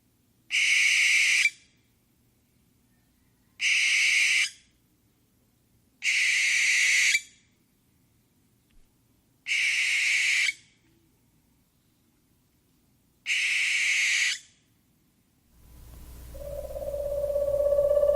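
Owl screeching: five harsh, hissing shrieks of about a second each, a few seconds apart. Near the end a steady humming tone swells in.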